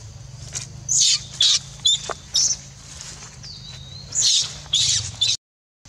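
Baby monkey giving shrill distress screams, about six short high-pitched cries, two of them drawn out a little longer. The sound drops out suddenly near the end.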